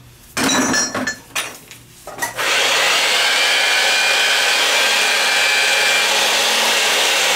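A few metal clanks and knocks as black pipe is handled in the chuck of a power pipe-threading machine. About two and a half seconds in, the machine's electric motor starts and runs steadily with a faint whine, spinning the pipe.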